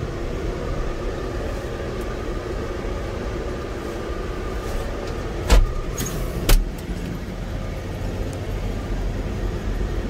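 Fendt 720 tractor's engine running steadily, with two sharp knocks about a second apart midway through.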